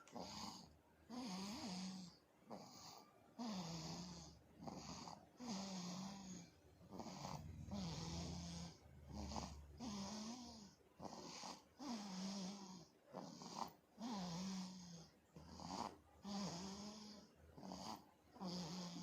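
A sleeping pet snoring in quick, regular breaths, roughly one a second. Each breath is a raspy hiss with a short, wavering low tone in it.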